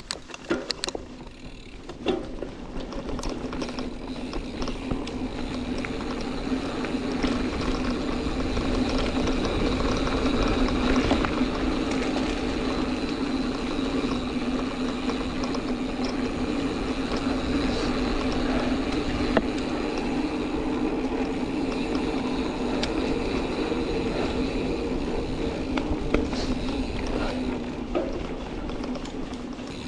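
Mountain bike rear freehub ratcheting while coasting, a loud steady buzz that grows over the first several seconds as speed builds, mixed with tyre rumble and wind on the helmet camera.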